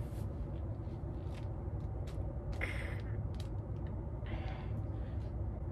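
A woman's short, effortful gasps, two of them, about two and a half and four and a half seconds in, as she strains to twist a stuck jar lid through a cloth towel. A steady low hum runs underneath.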